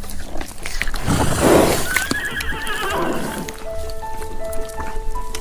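A horse whinnying once, its pitch quavering and falling, about two seconds in, over background music with steady held notes.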